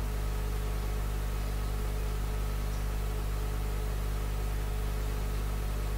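Steady low hum with an even hiss and a faint held tone above it, unchanging throughout: the hall's room tone picked up through the microphone and sound system.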